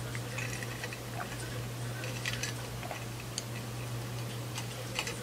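A person drinking a sparkling drink from a glass in continuous gulps: soft swallowing clicks and small mouth sounds, scattered irregularly over a steady low hum.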